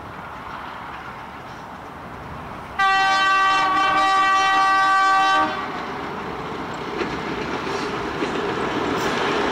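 Vintage Alco diesel locomotive approaching with its engine running, sounding one long horn blast about three seconds in that lasts about two and a half seconds. After the horn the engine grows steadily louder as the train draws near.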